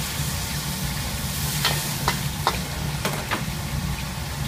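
Red sauce simmering around a whole fish in a pan, sizzling and bubbling with a steady hiss over a low steady hum. A handful of sharp clicks or pops come in quick succession in the middle.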